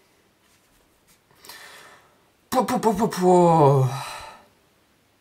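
A young man's drawn-out impressed exclamation, "pouh", its pitch sliding down over about two seconds, starting about two and a half seconds in. It is his reaction to music he is hearing through in-ear earphones, which is not heard itself.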